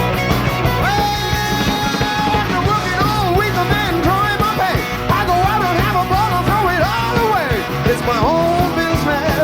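A live rock-and-roll band playing an instrumental break: a lead electric guitar plays a solo of bent, sliding notes over bass guitar and drums.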